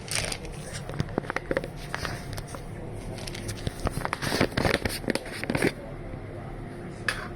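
Irregular clicks, taps and light knocks of kitchen work, bunched about a second in and again from about four to five and a half seconds in, over a steady low hum.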